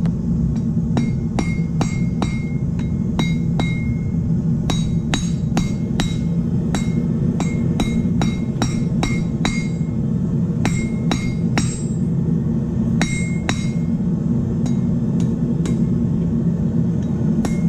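Blacksmith's hand hammer striking red-hot steel on a length of railroad track used as an anvil: an uneven series of sharp metallic strikes, often a few in quick succession with short pauses between, several of them ringing briefly. This is the back of the hammer narrowing the hot cone of a forged crossbow bolt head. A steady low hum runs underneath.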